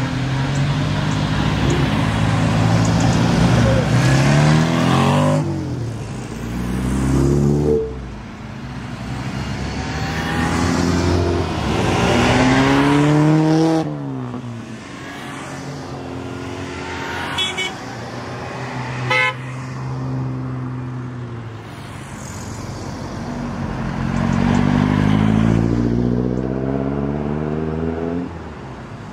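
A procession of classic cars driving past one after another, each engine rising in pitch as the car accelerates away. A car horn toots briefly twice near the middle.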